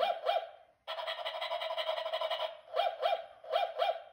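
Battery-operated toy dog yipping in short pairs over a steady electronic buzz: two yips at the start, an unbroken buzz through the middle, then four more yips in two pairs near the end.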